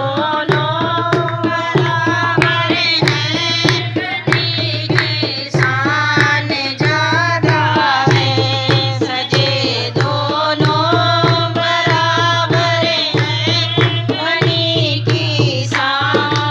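Women singing a tel geet, a North Indian wedding ritual folk song, to a hand-played dholak beating a steady rhythm.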